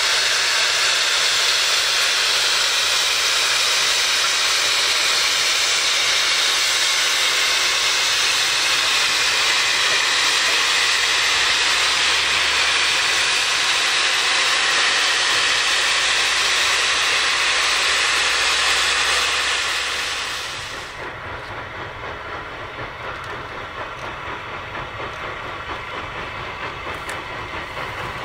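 NGG16 Garratt steam locomotive blowing off steam in a loud, steady hiss, which stops abruptly about twenty seconds in. After that, a quieter rumble of the train running with a slight pulse.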